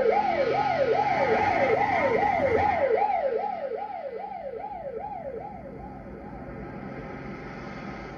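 Police car siren wailing in quick, repeated falling sweeps, about two and a half a second. It fades after about three seconds and dies out a little past the middle, leaving a quieter car engine and road noise.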